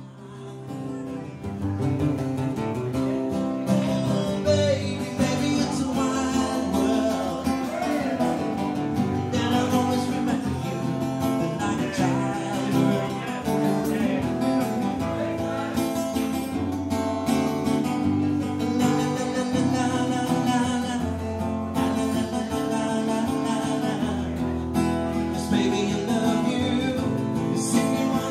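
Two acoustic guitars playing together, strummed chords with picked notes, swelling up to full level about a second in.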